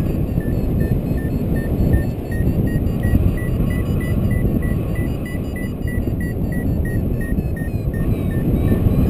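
Wind buffeting the microphone in flight, over a paragliding variometer beeping about two to three times a second. The beeps rise slightly in pitch through the middle, fall back, and stop near the end: the climb tone of a glider in rising air.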